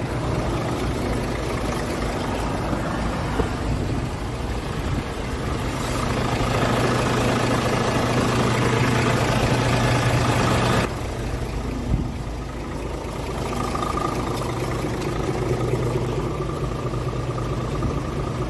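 Scania R450's six-cylinder diesel engine idling steadily, heard with the oil filler cap off. It is louder for a few seconds in the middle and a little quieter from about two-thirds of the way through.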